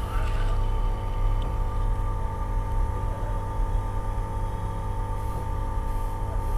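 Hot air gun blowing with a steady hum and rumble as it heats the phone to soften the adhesive. A faint tick sounds about a second and a half in.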